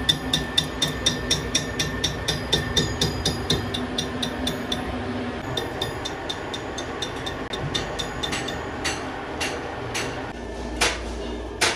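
Sharp metal-on-metal taps at an even pace, about three a second, over a steady machine hum; the hum stops about five seconds in and the taps fade out. A few separate, louder metallic strikes come near the end.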